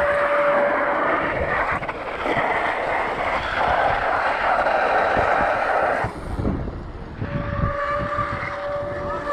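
Wind rushing over a GoPro's microphone during a fast downhill BMX ride, easing off briefly around six seconds in. A thin steady whine sounds in the first second and again near the end.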